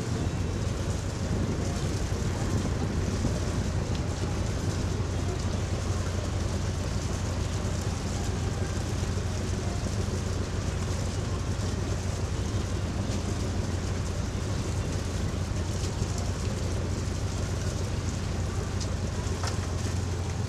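Boat engine running steadily with a low drone, under a constant hiss of water and wind.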